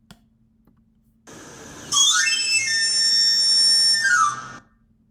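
Knife sharpener's panpipe whistle, the afilador's street call: a quick rising run of shrill notes that is held for about two seconds, then slides back down, over a background hiss.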